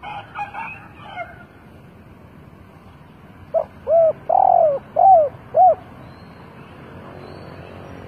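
Spotted dove cooing: a phrase of five arched coo notes lasting a little over two seconds, the middle note the longest.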